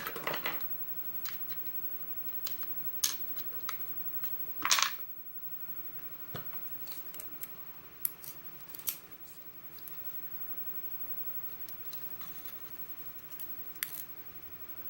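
Scattered small metallic clicks and taps of a pin-tumbler lock being handled and taken apart by hand, with one longer scrape a little before five seconds in.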